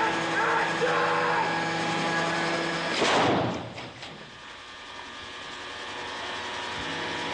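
A steady engine hum under yelling voices, then a sudden pyrotechnic explosion about three seconds in. After the blast the hum stops and a softer rushing noise slowly builds.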